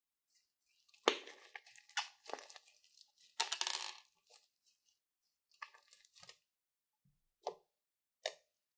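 Slime being stretched and squeezed by hand, with bursts of wet crackling and squelching, then fingers pressed into the flattened slime, giving two short wet pops near the end.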